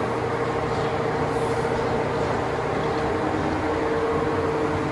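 Steady mechanical drone of pig-barn machinery, with a held mid-pitched hum that fades briefly and returns near the end.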